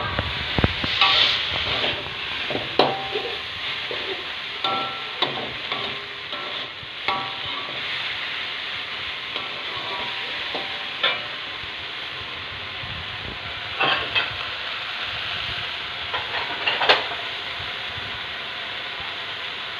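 Fern shoots stir-frying in a wok: a steady sizzle, with a metal spatula scraping and clinking against the wok every few seconds as it turns the greens.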